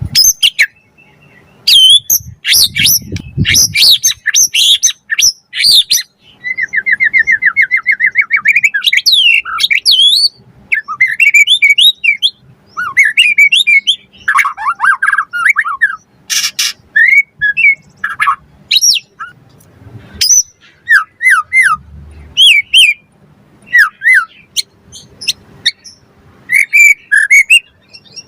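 White-rumped shama (murai batu) singing a loud, varied song of whistled phrases and a fast trill, delivered in quick bursts with short pauses between them.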